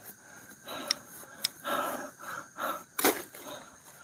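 Dry fallen leaves rustling and crunching in irregular bursts under someone moving and stepping about, with a few crisp clicks and one louder sharp crack about three seconds in.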